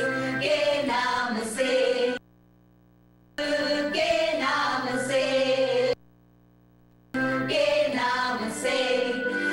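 A small choir singing a worship song, women's voices in front. The singing comes in phrases of three to four seconds, each cutting off suddenly into about a second of near-dropout before the next phrase starts abruptly.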